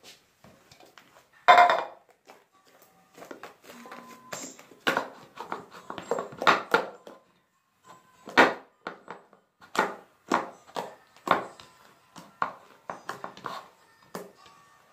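Slime being kneaded and squeezed by hand: irregular squishing and popping squelches, with one louder squelching burst about a second and a half in.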